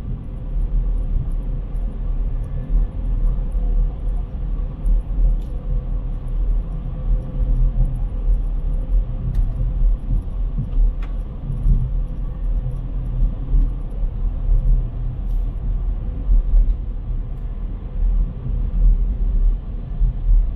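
Steady low rumble of outdoor city ambience, with a few faint ticks.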